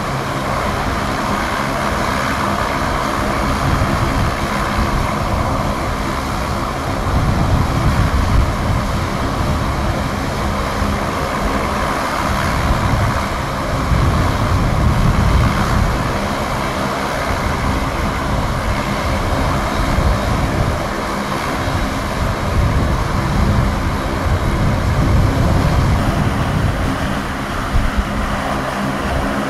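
Ground engine run of a Saab 340B's twin GE CT7 turboprop engines, both propellers turning. A steady loud drone with a low rumble that swells and eases several times.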